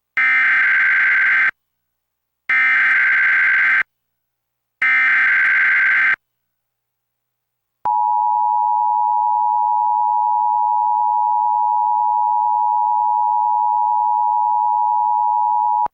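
Emergency Alert System SAME header: three short blasts of digital data tones, each about a second and a half, then, after a pause, the steady EAS attention signal tone held for about eight seconds. Together they mark the start of an EAS Required Monthly Test.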